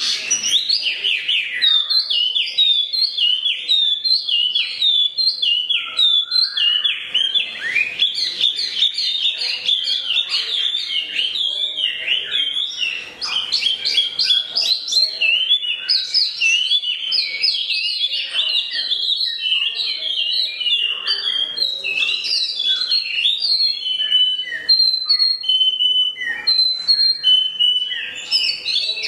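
Wambi mini songbird singing a long, unbroken song of rapid chirps, short whistles and trills, full of mimicked canary phrases.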